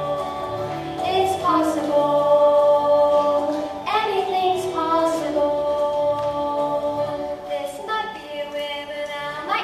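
A girl singing a show tune in long held notes that step to new pitches every second or few, over a quiet musical accompaniment.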